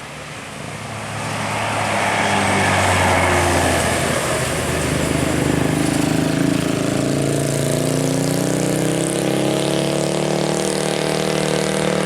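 Tour bus engine accelerating, its note rising steadily over several seconds; it gets louder about a second and a half in as the bus draws near.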